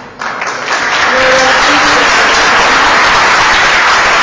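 Audience applauding: a few scattered claps at first, swelling to loud, steady applause within about a second.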